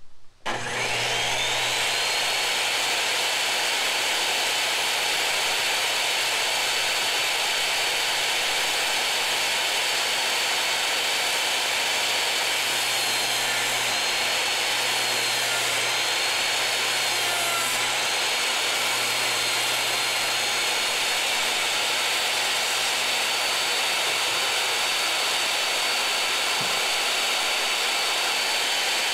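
Compact jobsite table saw switched on, its motor whining up to speed, then running steadily while a pine board is fed through the blade.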